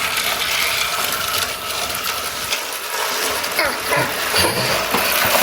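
Motorized toy train running on plastic track: a steady whirring, rattling clatter of its small geared motor and wheels.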